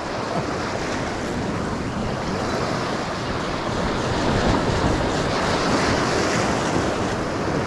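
Sea surf washing against the rocks, with wind buffeting the microphone: a steady rushing noise that swells a little about halfway through.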